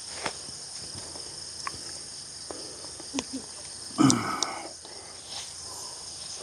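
Steady chirring of crickets, with scattered light clicks of utensils and a short breathy sigh with a falling pitch about four seconds in.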